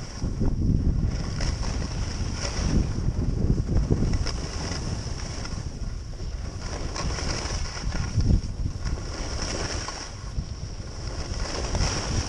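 Wind buffeting an action camera's microphone during a downhill ski run, with the hiss and scrape of skis on snow. The rushing noise swells and eases every second or two.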